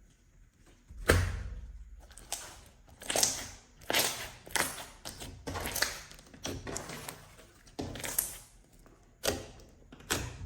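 Slime being mixed and squeezed by hand: about a dozen short wet sounds at irregular intervals, each starting sharply and fading quickly.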